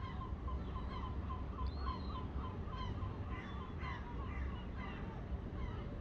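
A bird calling in the background: a rapid run of short, repeated calls at about three to four a second that thins out near the end, over a low rumble.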